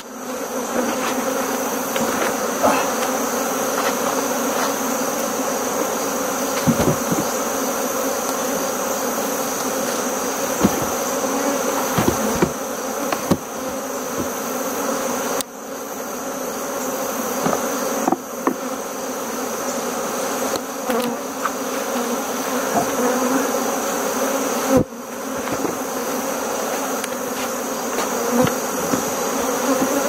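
Dense, steady buzzing of a honeybee colony swarming over an opened hive, with occasional sharp knocks of the wooden hive boxes being lifted and set down.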